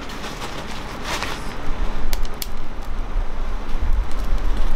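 Sticks burning in a small Lixada wood stove, which the owner takes for cherry wood, giving a few sharp crackles and pops. Under it is a low, uneven rumble that grows louder about two seconds in.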